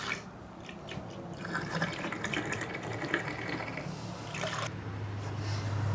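Liquid fuel being poured from a can into a portable heater's fuel tank, with a steady filling sound. A low steady hum starts near the end.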